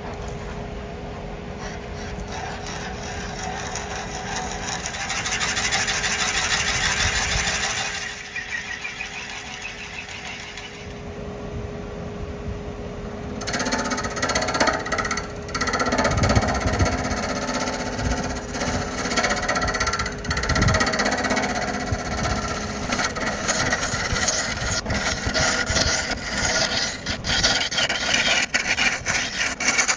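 Wood lathe spinning a live-edge oak vase blank with a steady hum. For the first eight seconds or so a drill bit bores into the end grain to open the mouth, then from about 13 seconds in a hollowing tool cuts inside the mouth with a loud, rough, uneven scraping.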